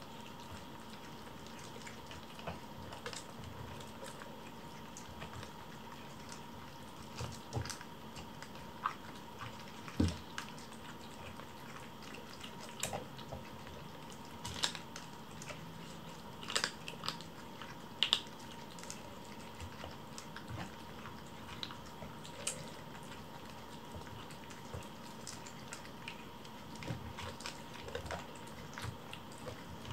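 Four kittens eating from bowls: faint, scattered small clicks and smacks of chewing and lapping, with now and then a sharper, louder click.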